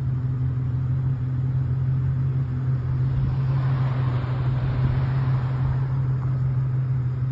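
A vehicle engine running with a steady low hum, and a rush of noise that swells and fades about three to six seconds in.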